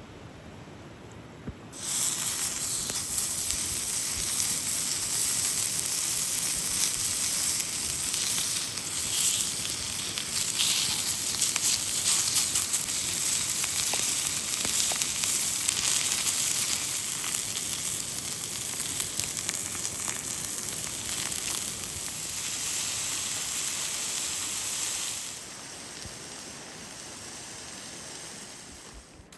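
Food sizzling in a hot pan. It starts suddenly about two seconds in, as the food goes into the pan, runs steadily, and drops much quieter near the end.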